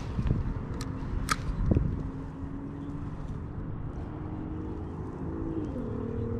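Spinning reel being cranked to retrieve line after a cast, its gears giving a steady whirring hum that shifts in pitch near the end. A couple of sharp clicks about a second in, and wind rumbles on the microphone.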